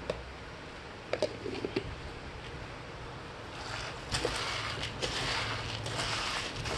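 Metal spoon stirring dry seed grain in a plastic bowl, mixing in powdered supplements. A few light clicks come first, then from about halfway a continuous gritty rustle of grain being turned over, with small clicks.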